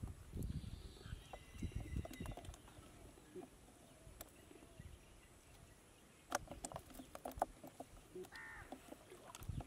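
Wet gill net being pulled and handled in shallow rice-field water, with irregular soft splashes, drips and rustles and a few sharp ticks from the net and water. A bird calls once near the end.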